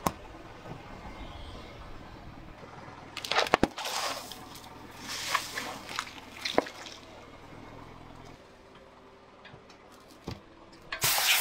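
Car tyre rolling over and crushing small objects on asphalt: clusters of sharp cracks and crunches. Near the end a spray can bursts under the tyre, releasing a loud, steady spraying hiss.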